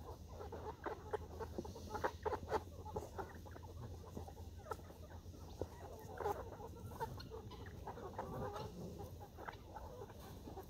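A flock of chickens clucking in short, scattered calls, fairly faint.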